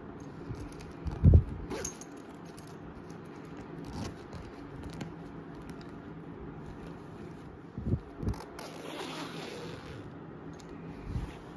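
A zipper being pulled along a fabric cover over a foam pad, with rustling of the fabric as it is handled and a few dull thumps, the loudest about a second in.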